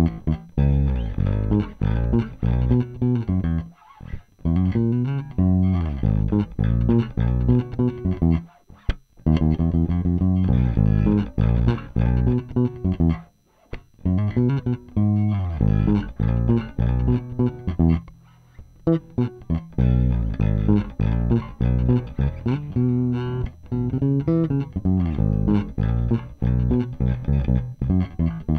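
Unaccompanied electric bass playing a busy line of plucked notes, heard through swapped potentiometers of different resistance values, with brief pauses every few seconds.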